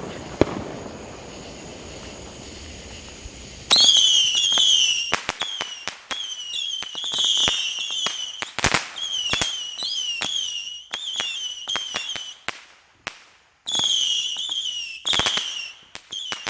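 Consumer fireworks going off: a steady hiss for about four seconds, then a rapid string of sharp cracks with shrill, wavering whistles coming in bursts.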